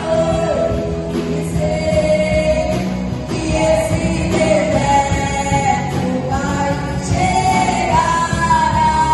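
Contemporary worship song with a female lead voice singing over a full band.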